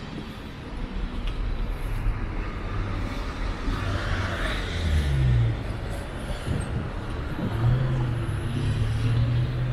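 Street traffic: cars and a van running and passing at low speed, a steady low engine hum with tyre noise. The hum swells about halfway through and again near the end.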